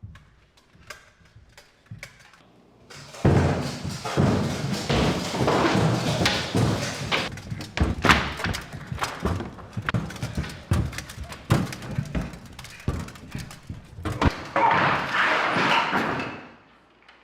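A rapid, irregular string of thumps and knocks over a noisy din, starting a few seconds in and fading to a hiss near the end.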